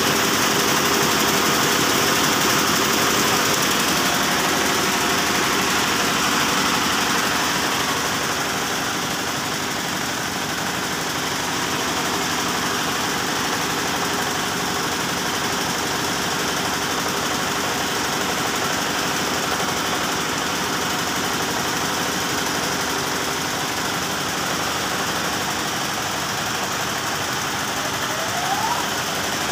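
Yanmar TF105R single-cylinder diesel engine running steadily, driving a belt-driven air compressor pump on a test run.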